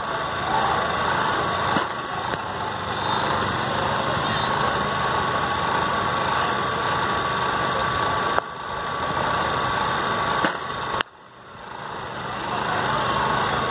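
A cricket bat striking a ball with a sharp knock about eleven seconds in, after a few lighter knocks, over a steady engine-like hum with a constant high whine.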